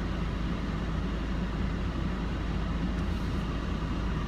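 Steady low rumble and hiss of a running car heard from inside its cabin, with no distinct events.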